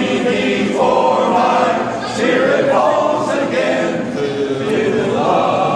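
A cappella choir singing, in phrases that change about two and four seconds in.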